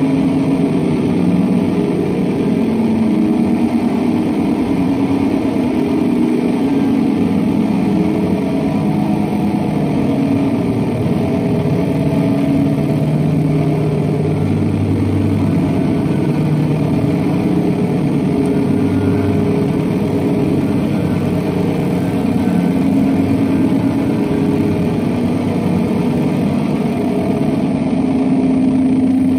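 Electric guitar processed through a double set of effects pedals, giving a loud, dense electronic drone whose low pitches shift every few seconds without a break.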